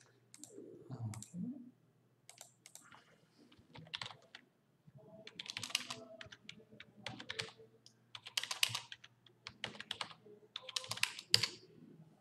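Typing on a computer keyboard: irregular runs of quick keystrokes separated by short pauses.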